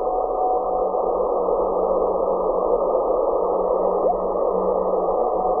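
Hiss from an RTL-SDR receiver tuned in LSB to the Graves radar on 143.05 MHz, with a steady whistling tone that fades out about a second in and a short rising whistle about four seconds in: radar echoes reflected off meteor trails.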